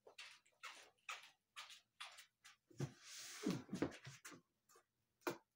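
Large cardboard scooter box being handled: a short rustling scrape with several low knocks about three seconds in, among light taps about two a second.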